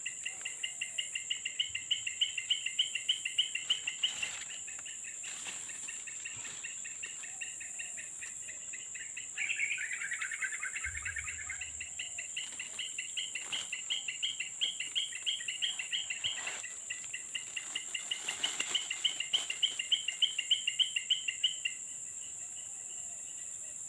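Insects and birds calling: a steady high-pitched insect drone under phrases of fast pulsing trills, with a short falling call about ten seconds in.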